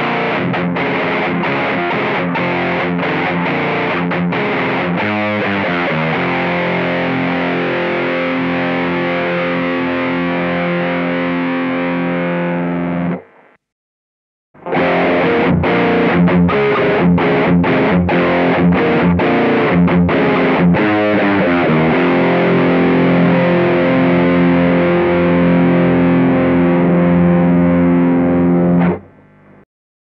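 Distorted electric guitar playing the same riff twice, both times with gain at 12 o'clock and tone at 3 o'clock. The first pass goes through a Nux Plexi Crunch Marshall-style overdrive pedal; after a pause of about a second near the middle, the second pass goes through a Mooer Cruncher Marshall-style distortion pedal. Each pass opens with a few seconds of quick picked chugs, then moves to held, ringing chords.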